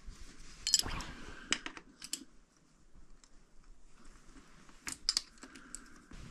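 Light, sharp clicks and snips of hand tools being handled, in a cluster about a second in and another about five seconds in.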